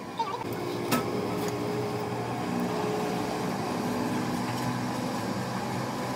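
Steady mechanical hum of running machinery with several held tones, and a single click about a second in.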